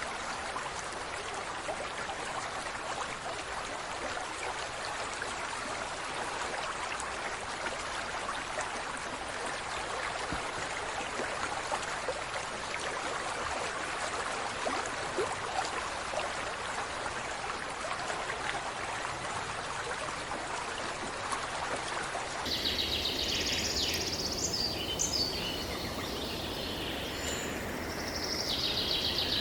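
Steady rush of flowing water, like a stream. About three-quarters of the way through it cuts off abruptly and is replaced by high-pitched chirping of small birds.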